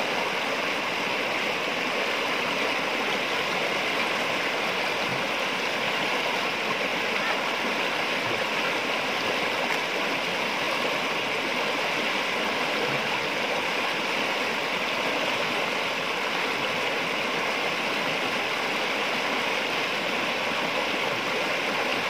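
River rapids rushing over and around boulders: a steady, unbroken rush of white water.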